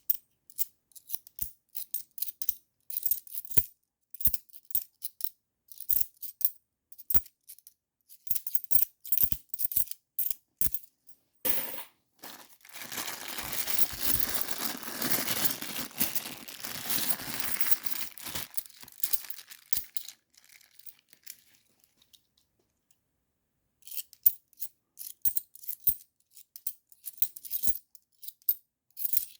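50p coins clicking and clinking against one another as they are picked through and sorted by hand, in quick separate taps. In the middle comes several seconds of steady rustling, then a short lull before the clicking picks up again.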